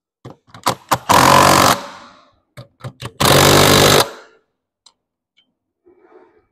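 Cordless impact wrench hammering nuts down onto the bolts of a Hutchinson beadlock rim: a few short trigger blips, then two bursts of rapid hammering of just under a second each, about two seconds apart. The nuts are being run down evenly around the ring to pull the beadlock down before final torquing.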